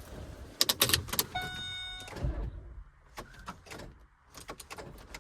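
Pontiac G8 with a dead battery failing to start: scattered clicks and knocks from inside the car and one short, steady electronic chime about a second and a half in, with no engine cranking or running.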